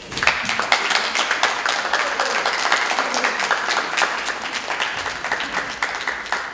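Applause: many people clapping together. It starts abruptly and dies away near the end.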